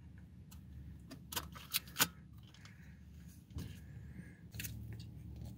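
Faint handling sounds of a camera and a roll of 120 film in the hands: a few separate small clicks and rustles. A low steady hum comes up about two-thirds of the way through.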